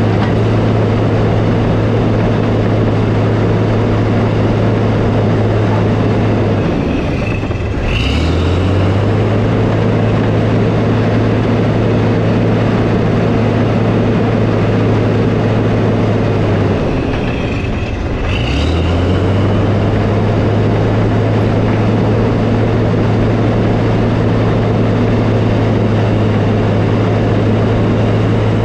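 Diesel engine of a tracked earthmoving machine running steadily. Twice, about ten seconds apart, its pitch sags briefly and climbs back, each time with a short high squeak.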